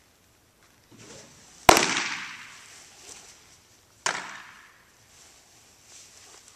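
A pitched baseball smacks into a catcher's mitt with a sharp, loud pop that rings on in the large indoor hall. A second, slightly weaker smack follows about two and a half seconds later.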